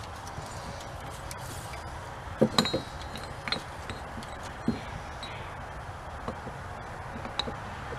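A few light metallic clinks and taps, loudest about two and a half seconds in, as a cordless drill's bit and a cast aluminium piston are handled and repositioned between drilling passes; the drill itself is not running.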